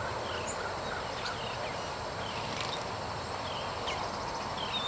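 Steady outdoor background noise with scattered short, high bird chirps.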